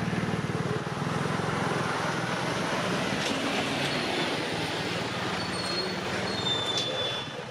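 Street traffic, led by a heavy truck's diesel engine running close by as its semi-trailer rolls slowly past, a steady low throb. A few thin high squeals near the end.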